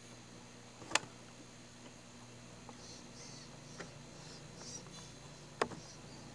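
Two sharp clicks, one about a second in and one near the end, over a steady low hum and faint high chirping.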